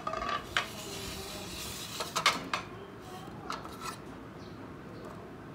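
Kitchen dishes and utensils clinking and knocking as they are handled on a counter, with a quick cluster of sharp clinks about two seconds in and a few lighter ones near four seconds.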